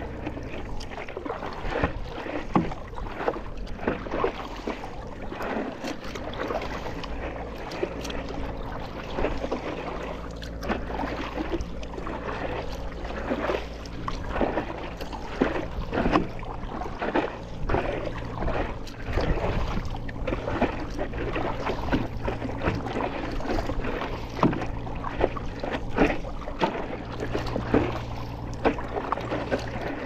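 Paddle strokes in seawater from a stand-up paddleboard: repeated irregular splashes and drips as the blade dips in and lifts out. A low steady hum runs underneath.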